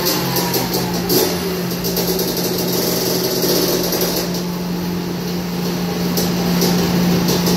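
Honda CR500 two-stroke single-cylinder engine running on a chassis dyno: its revs fall away in the first moment, then it runs at a steady speed.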